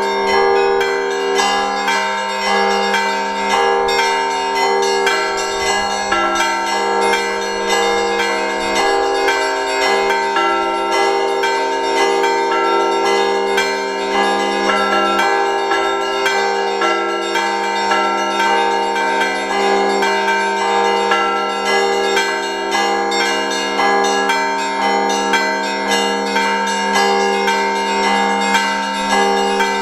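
Russian Orthodox church bells rung by bell ringers in a festive peal (zvon): many small bells struck several times a second over the sustained ringing of the larger bells, unbroken throughout.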